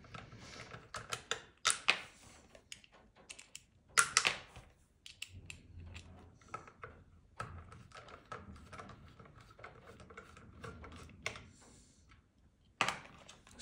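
Irregular small clicks and taps of a hand screwdriver and its Torx bits being handled and worked on the chassis screws inside a speaker's plastic housing, with a few sharper clicks about 2 s, 4 s and near the end.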